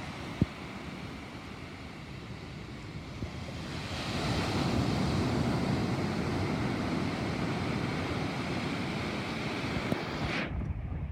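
Thunderstorm rain and wind: a steady noisy rush that swells louder about four seconds in, holds, then drops away suddenly near the end.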